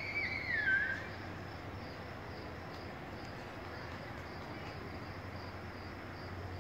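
A bird gives a short warbling, falling call in the first second, over a faint, evenly pulsing insect-like trill and a low steady hum.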